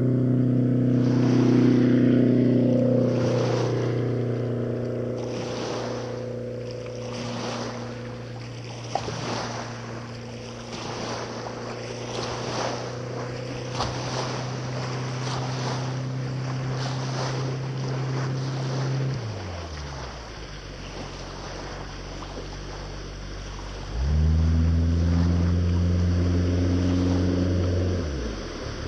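Motorboat engine idling close by, with water slapping against the hull about once a second. The engine winds down about two-thirds of the way through; a few seconds later another engine sound starts abruptly, runs steadily and falls away near the end.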